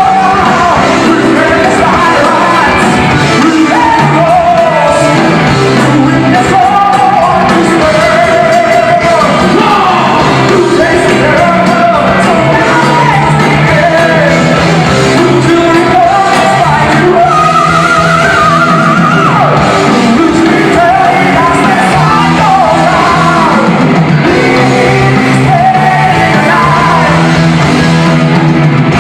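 Heavy metal band playing live in a large hall, with a singer's high, held vocal lines over distorted guitars and drums; loud and heavily compressed.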